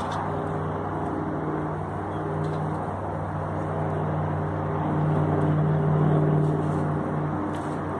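A steady engine hum, swelling to its loudest about six seconds in and then easing off, like a motor vehicle passing at a distance.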